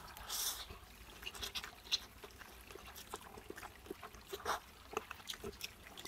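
A person slurping instant fried noodles, a short hissing slurp about half a second in, then soft wet chewing with scattered small clicks and smacks of the mouth.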